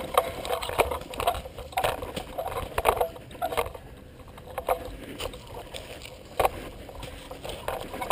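A person crawling over sandy ground and dry leaves: irregular scraping and crunching of body, clothing and gear dragging through the dirt, with one sharper knock about six and a half seconds in.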